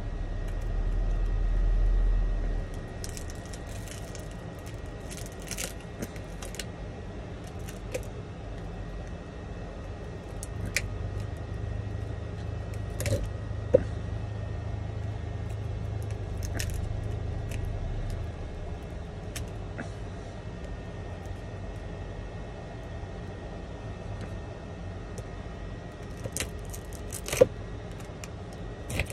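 Scattered sharp clicks and light scraping of a metal pick chiseling laser-loosened back glass off an iPhone 11, small glass shards ticking as they break away. A steady low hum runs underneath, with a louder low rumble in the first couple of seconds.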